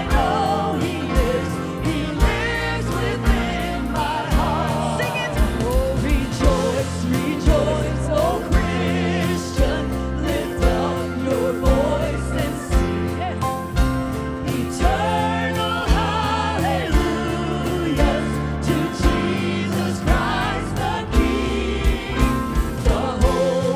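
Gospel worship song: a woman's lead vocal with vibrato over a band with drums, with other voices singing in harmony.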